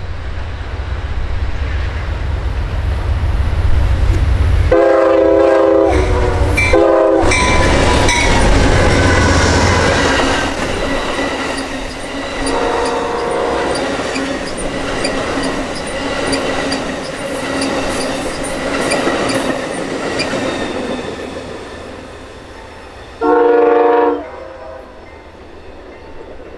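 Amtrak California Zephyr passing close by behind a GE Genesis diesel locomotive: heavy engine rumble for the first ten seconds, with a long and then a short horn blast about five to seven seconds in. The double-deck Superliner cars then roll past with wheel clatter and a high wheel squeal. A fainter horn sounds around thirteen seconds in, and another short, loud blast comes near the end as the train draws away.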